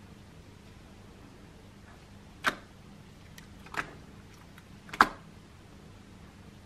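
A hand squishing runny homemade slime, pressing in and pulling out, with three short wet squelches about a second apart, the last one the loudest, and a few faint ticks between them.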